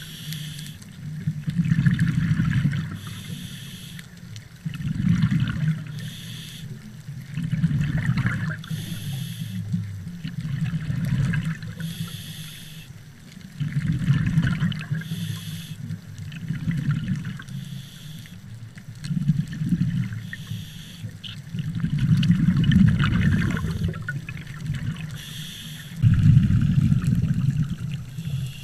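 Scuba diver breathing through a regulator underwater: a short hiss on each inhale, then a rumble of exhaled bubbles, repeating about every three seconds.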